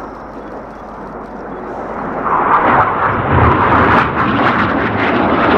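Jet noise from Red Arrows BAE Hawk T1 trainers, powered by Rolls-Royce Adour turbofans, as they fly past. The roar builds over the first two seconds and stays loud for the rest.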